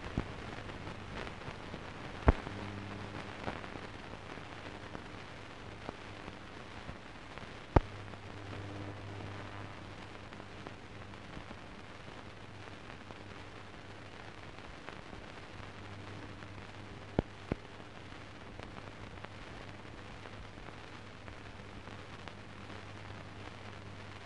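Surface noise of an old 1940s newsreel soundtrack: a steady hiss with a few sharp pops and clicks, and a faint low hum that fades in and out.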